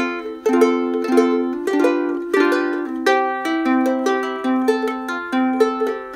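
Ukulele played as a short tune of plucked notes, several a second, recorded through an iPhone 7 Plus's built-in microphone.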